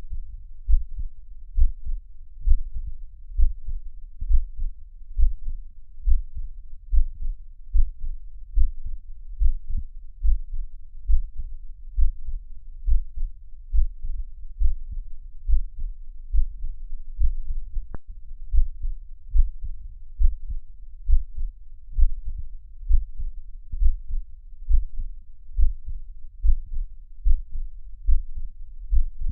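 Heartbeat recording: a steady, even rhythm of low thuds.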